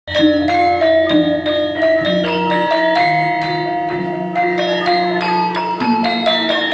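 Javanese gamelan ensemble playing an instrumental passage: bronze metallophones and kettle gongs struck in a steady pulse, their ringing notes overlapping, with a low tone under the opening notes.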